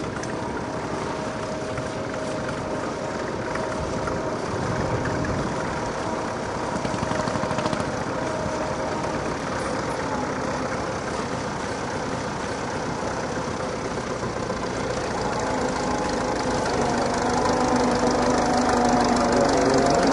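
Vintage tractor engine running steadily, its note shifting and growing louder over the last few seconds.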